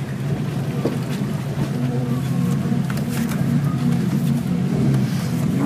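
Off-road vehicle engine running steadily at low revs while crawling over a rocky trail, heard from inside the cab, with a few short knocks and creaks.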